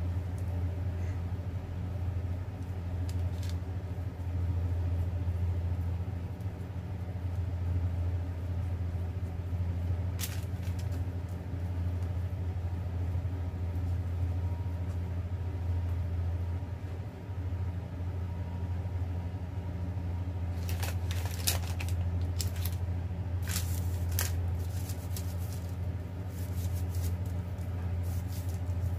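A steady low hum, with soft rustles and crackles of baking paper now and then as dough balls are shaped and set into a paper-lined pan, a short flurry of them coming about two-thirds of the way through.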